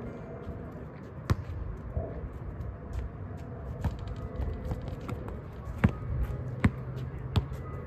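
Basketball bouncing on a hard court: single sharp bounces at uneven intervals, about ten in all, the loudest a little before the end, over a steady low background noise.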